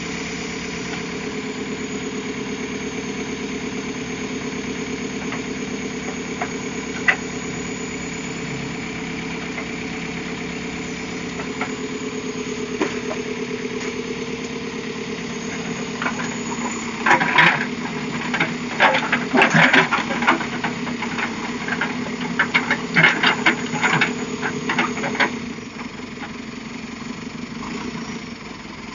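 Heavy diesel engine of a backhoe loader running steadily. From about two-thirds of the way in, a burst of loud, rapid clanks and knocks lasts several seconds, with a couple of single sharp clicks earlier.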